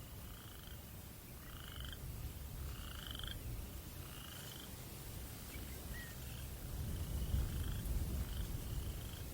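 Night breeze rumbling low and unevenly, swelling about two-thirds of the way through. Over it, a night creature repeats a short trilling call about once a second.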